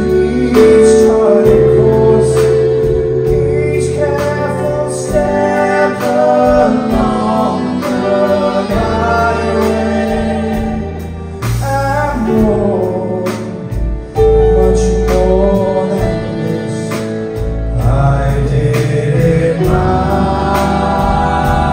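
Live stage show: a vocal group singing with a band, the voices over sustained bass notes and the band's backing.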